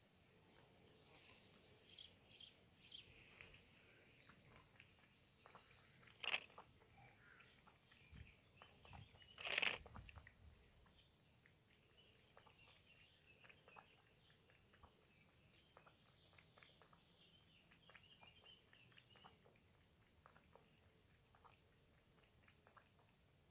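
A cat lapping milk from a plastic tub: faint, quick wet clicks of the tongue, with two louder brief sounds about six and ten seconds in.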